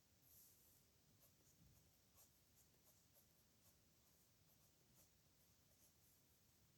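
Faint scratching of a pen nib on paper, in a string of short, irregular strokes as letters are written.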